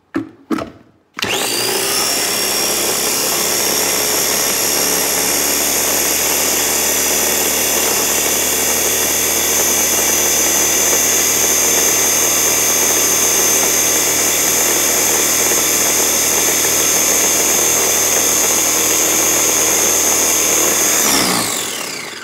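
Two knocks as the motor head of a Ninja food chopper is set on its bowl. Then its motor runs steadily with a high whine for about twenty seconds, puréeing a thick red pepper dip, and winds down when the top is released.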